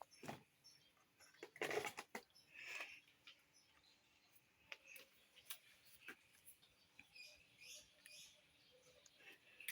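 Near silence broken by faint scattered clicks and soft rustles, with a louder rustle about two seconds in.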